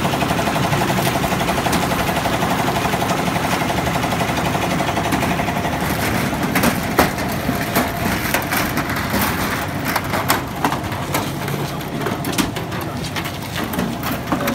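A construction machine runs with a rapid, even chugging beat that fades after about six seconds. After that, scattered knocks and clatters come from a loaded concrete cart being wheeled and tipped on the steel mesh.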